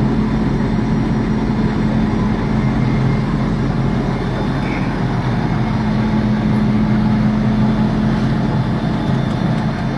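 Engine of a purse-seine fishing boat running steadily at an unchanging pitch, a constant low hum.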